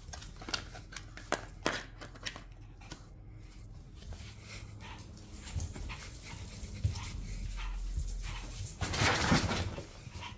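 A Pomeranian making small barks and whines while it plays with a chew and the owner's hand, with scattered short clicks and a louder burst of noise about nine seconds in.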